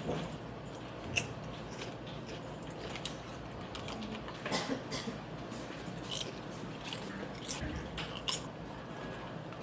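A person eating at close range: scattered crisp bites and chewing clicks, a few at a time, over a steady low hum.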